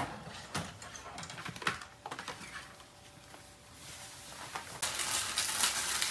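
Handling noise: a few light knocks and taps in the first two seconds, then, from about five seconds in, loud rustling as a folded plastic water-drawing mat is shaken open and spread out.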